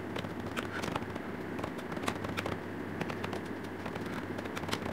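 Computer keyboard typing: quick, irregular key clicks over a low steady hum.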